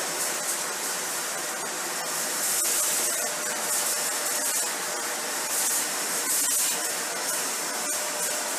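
Dyson Ball Animal 3 upright vacuum running on a tile floor: a steady rushing hiss of motor and suction with a faint whine. Scattered small clicks come as debris is drawn up into the cleaner head.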